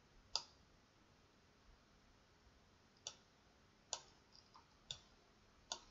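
Five separate computer mouse clicks spread over about six seconds, otherwise near silence.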